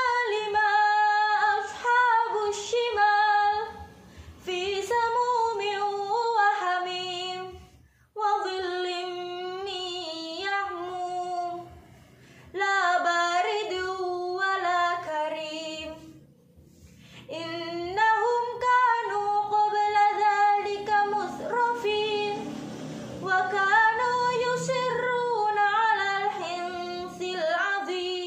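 A young woman's solo, unaccompanied voice reciting the Qur'an in melodic tartil style. Long, drawn-out phrases rise and fall in pitch, with short pauses between them.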